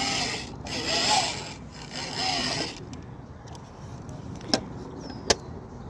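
Rubbing and scraping handling noise for the first few seconds, then two sharp clicks a little under a second apart.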